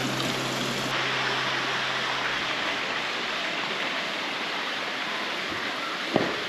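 Steady rush of water pouring and splashing into a fish pond.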